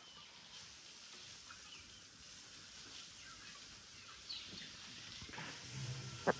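Quiet outdoor ambience with faint, scattered bird chirps, and a sharp knock near the end.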